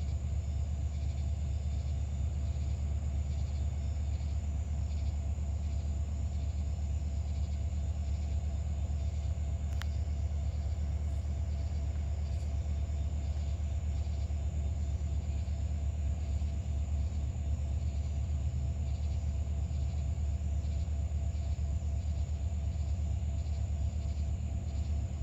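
Norfolk Southern EMD SD40-2 diesel locomotives, each with a 16-cylinder two-stroke 645 engine, idling at a standstill with a steady low rumble.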